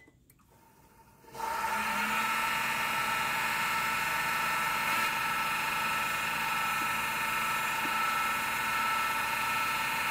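Wood lathe motor starting about a second in and then running at a steady speed, a whine of several fixed tones, while a lignum vitae spoon handle spins for cloth polishing. A sharp click comes at the very start.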